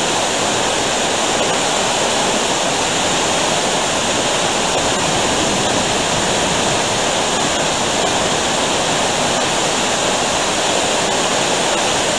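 Steady rush of a shallow river running over rapids.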